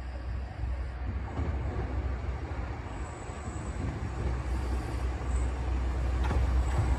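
Diesel railcar (KiHa 37100) pulling slowly into the station, its engine and wheels making a steady low rumble that grows louder as it comes closer.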